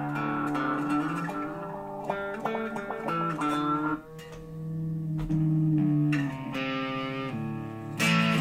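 Gibson Les Paul electric guitar played through a Digitech RP55 effects processor: a run of picked and held notes, a short drop in level about four seconds in, then a louder chord struck near the end.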